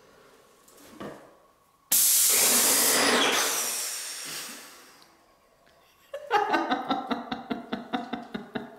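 Wagner Control Pro 250M airless paint sprayer. About two seconds in, a sudden loud hiss of paint spraying from the wand tip begins and fades away over a few seconds. About six seconds in, the sprayer's pump starts with a rapid rhythmic clatter of about eight or nine strokes a second.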